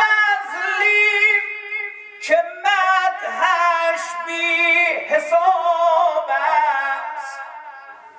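A man singing a Persian religious eulogy (maddahi) solo into a microphone, without accompaniment. He holds long, high notes decorated with wavering ornaments, in three phrases, and the last phrase fades away near the end.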